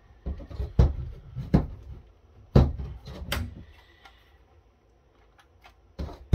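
The black plastic housing of a small firewall appliance being squeezed, pried at and handled. There are a handful of sharp plastic clicks and knocks in the first three and a half seconds, then near quiet, then one more knock about six seconds in.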